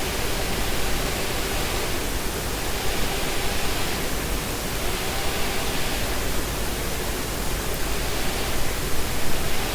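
Small electric motors spinning the propellers of a fischertechnik monorail carriage, giving a steady airy hiss that swells and fades about every two seconds.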